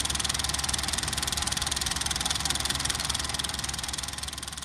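Old film projector sound effect: a fast, steady mechanical rattle over a low hum, fading out near the end.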